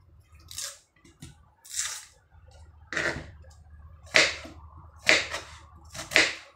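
Knife slicing through watermelon rind and striking the cutting board: about six sharp cuts, roughly one a second, the loudest a little past halfway.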